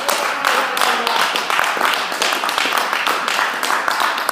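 Crowd clapping steadily, with voices calling out encouragement mixed in.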